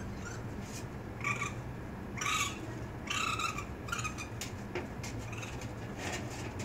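Baby raccoon crying: a series of short, high, cat-like calls, about one a second.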